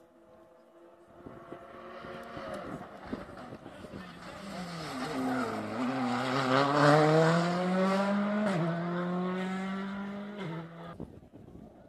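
Rally car engine approaching at speed, its note dropping as it slows for a corner, then climbing hard as it accelerates away, with two upshifts about eight and a half and ten and a half seconds in. It is loudest just after the corner and fades out near the end.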